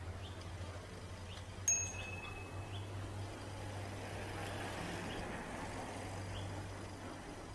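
Quiet outdoor ambience: a steady low hum with faint short chirps about once a second, one brief high ding just under two seconds in, and a soft rushing swell in the middle.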